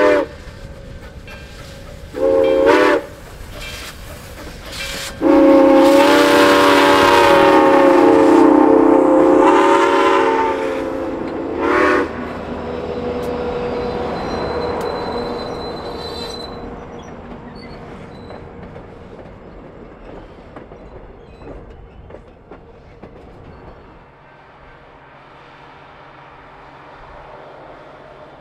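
Steam locomotive #4960's whistle, sounding several tones at once: a blast just ending, a short one about two seconds in, a long one from about five to ten seconds in, and a brief toot near twelve seconds. Then the train rolls past, a trailing diesel unit and passenger cars with wheels clicking over rail joints, growing quieter toward the end.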